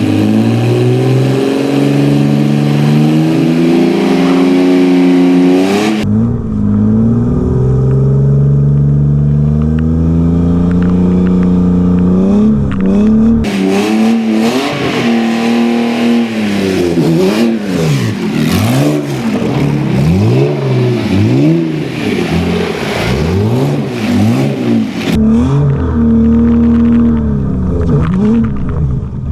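BMW E36 328i straight-six in a drift kart revving hard under throttle. For the first half its pitch climbs in long pulls; later it swings up and down about once a second as the throttle is worked through a drift. The sound changes abruptly about 6 and 13 seconds in.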